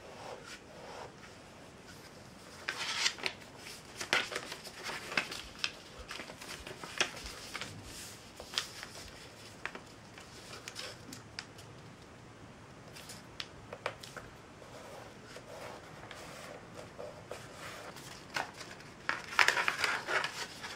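Sheet of paper rustling and rubbing in irregular short bursts as it is folded and its creases pressed by hand, busiest about three seconds in and again near the end.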